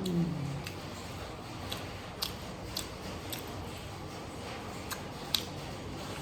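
Close-up eating sounds: chewing, with about eight sharp, wet mouth clicks and smacks spread unevenly. A short hum of the voice falls in pitch at the very start.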